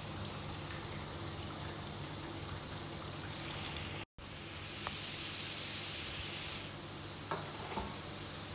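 Potato sticks deep-frying in hot oil in a pan, a steady sizzle during the first fry, cut short for an instant about four seconds in. A couple of light clicks near the end.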